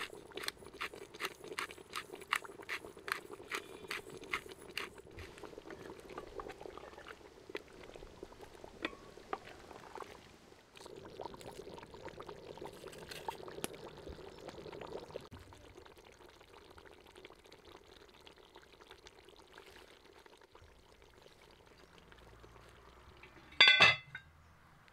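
A pepper mill grinding peppercorns into a pot of simmering goulash, a quick run of crunchy clicks for the first few seconds over the bubbling of the stew. Near the end comes a single loud clank as the cast-iron lid is handled on the cauldron.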